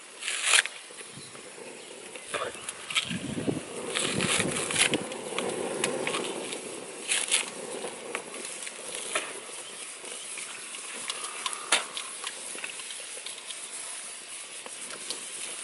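A person eating by hand, biting and chewing close to the microphone. There are several short, sharp bite or crackle sounds, and a busier stretch of chewing from about 3 to 6 seconds in.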